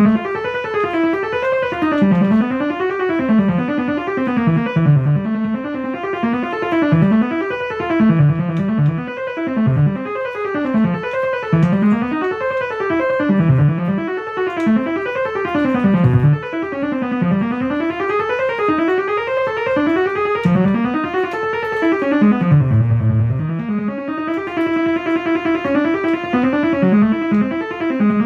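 Electric-piano keyboard music playing continuously: sustained chords whose pitch sweeps down and back up in slow arcs, a wavering effect on the notes.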